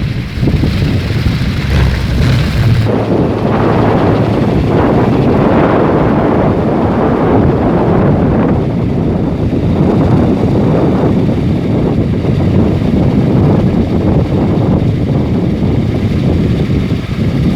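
Kolecer, a wind-driven wooden propeller on a pole, spinning in the wind with a loud, continuous thunder-like rumble that swells and eases with the gusts, mixed with wind buffeting the microphone.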